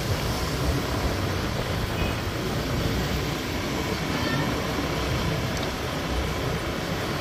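Steady rumbling ride noise from a motor scooter on the move: engine and road noise with wind buffeting the microphone.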